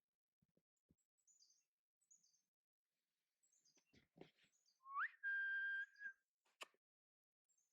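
A single whistled note about five seconds in that slides up and then holds steady for about a second, the loudest sound here. Faint, short, high chirps of small birds recur throughout, with a few light crunches like footsteps.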